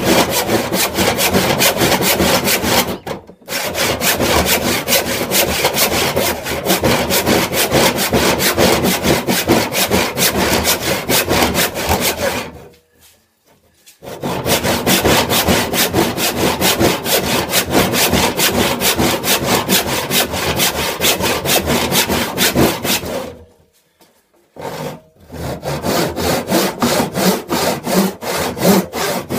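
Wooden-handled hand saw cutting through a thick plank of old reclaimed wood in fast, steady back-and-forth strokes. The sawing stops briefly three times, then carries on.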